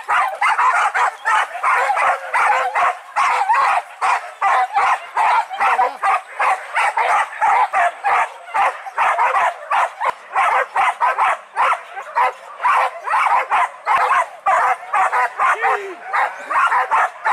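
A pack of hunting dogs barking rapidly and without letup, several dogs at once, with the barks tumbling over each other at about three or four a second.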